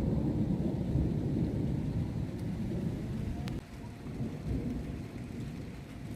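Thunder rumbling during a storm, loudest in the first half and dropping away suddenly a little past the middle, then fading. Rain falls steadily throughout.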